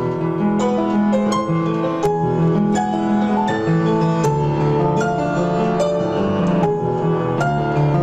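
Piano music: a melody of quick, evenly flowing notes over held bass notes, a composition that turns the digits of pi into notes.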